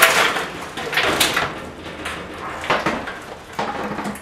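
Live Maryland blue crabs tipped out of a plastic bushel basket into a stainless steel steam pot, their shells scraping and clattering against the basket and the metal pot in several rushes, the loudest at the start.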